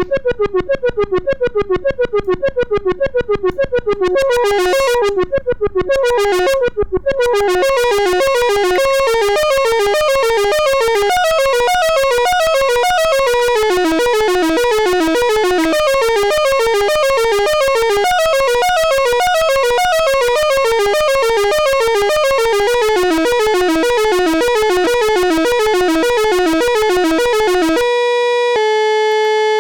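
Behringer Crave analog monophonic synthesizer playing a fast step-sequenced arpeggio, a quick repeating run of notes in falling patterns. The notes are short and clipped at first and run smoothly together from about seven seconds in. Near the end the sequence stops and one steady note is held.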